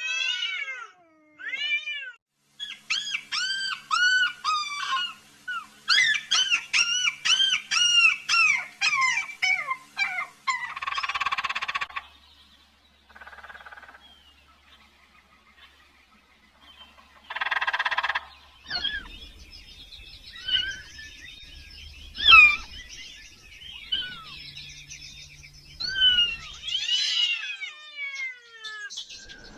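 Kitten meowing over and over in short, high-pitched calls, fast and close together at first and more scattered later, broken by two brief bursts of noise.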